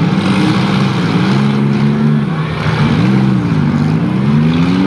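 Several demolition-derby cars' engines revving hard, their pitch rising and falling again and again as the cars pull away and start driving around the dirt arena.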